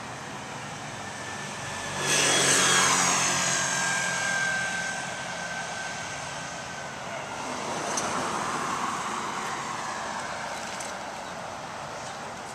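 A vehicle passes close by about two seconds in: its sound swells suddenly, then fades over several seconds with a slowly falling whine. A second, softer vehicle passes around eight seconds in, over a steady traffic hum.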